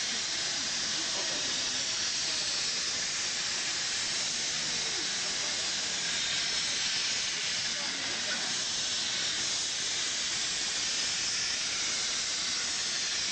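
Replica broad gauge steam locomotive Firefly venting steam in a steady, loud hiss, the steam escaping low at rail level. Crowd voices are faint beneath it.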